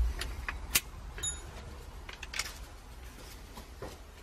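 Light clicks and knocks of small parts and tools being handled, with one short metallic ping about a second in.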